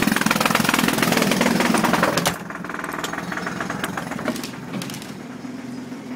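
Jackhammer pounding rapidly and loudly, dropping away sharply a little over two seconds in, leaving much quieter noise with a few clicks.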